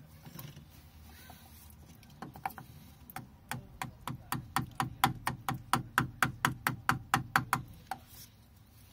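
Rubber mallet striking a wooden press jig, driving a new output shaft oil seal into a Velvet Drive marine transmission. A few scattered taps, then a steady run of about three sharp taps a second for some four seconds, stopping shortly before the end.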